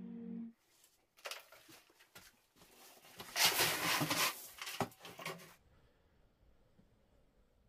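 Gravel poured from a plastic bucket onto an ondol floor bed of small stones: an uneven clatter and rush of stones, loudest near the middle, stopping about two-thirds of the way through.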